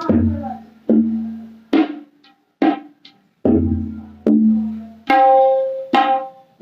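Tabla played to imitate a train: deep booming bass-drum strokes that hang and sink away, alternating with sharper, shorter strokes in an uneven chugging rhythm. About five seconds in comes a loud, steady held tone lasting about a second.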